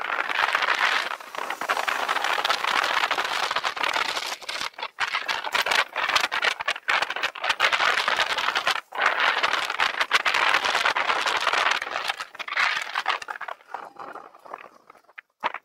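Continuous rattling and clattering road noise from a bicycle being ridden, picked up by a camera mounted on the bike, with brief gaps throughout; it eases off near the end.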